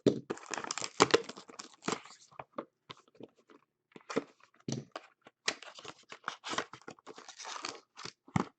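A trading-card pack wrapper being torn open and crinkled by hand, an irregular run of crackling and rustling.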